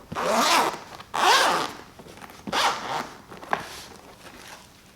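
Zipper of a handheld vacuum's carrying case being pulled open in three long strokes, followed by a short click.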